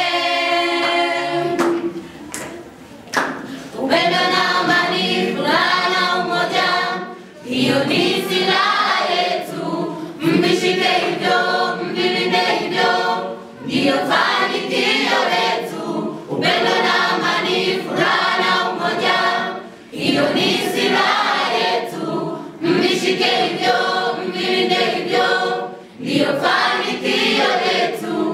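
Mixed choir of students singing unaccompanied in several-part voices, in phrases a few seconds long with short breaks between them.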